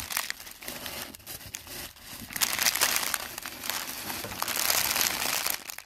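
Clear plastic packaging bags crinkling as they are handled with beaded bracelets inside. The crinkling is light at first and gets denser and louder from about two seconds in.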